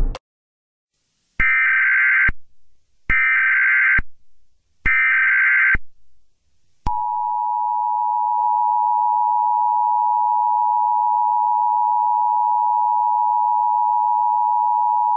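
Emergency Alert System tones. First come three short bursts of the SAME digital header, each just under a second and a little over a second apart. Then the EAS attention signal, two steady tones of about 853 and 960 Hz sounded together, holds for about eight seconds.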